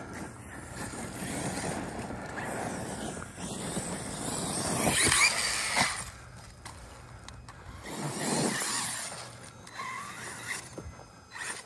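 Large-scale Kraton RC truck with a 2250 kV brushless motor on a 6S LiPo, driving over loose mulch and dirt: the motor whines up in pitch as it accelerates about five seconds in, with tyres churning and throwing mulch.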